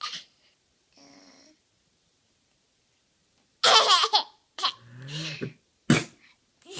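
Laughter: a loud outburst a little past halfway, followed by a deeper laugh and more short bursts near the end.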